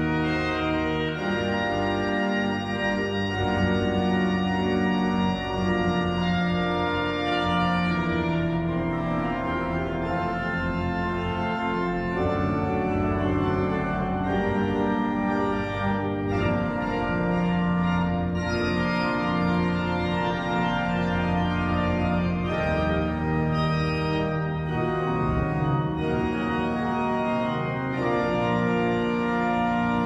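Cathedral pipe organ playing full, sustained chords that change every few seconds.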